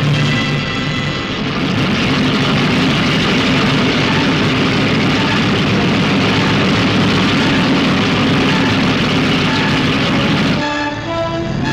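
Martin B-26 Marauder's twin Pratt & Whitney R-2800 radial engines at full takeoff power, a loud steady roar. Music comes back in near the end.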